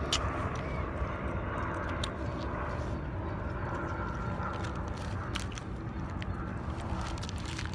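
Steady low outdoor rumble with scattered small clicks and crackles.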